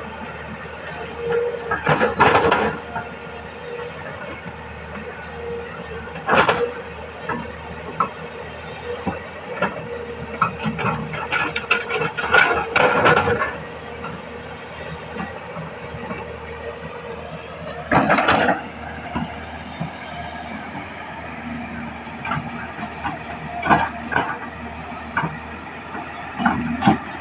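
Tata Hitachi FX220LC excavator's diesel engine running steadily, with a held hum, broken by several loud, short bursts of metallic scraping and clanking as the machine works.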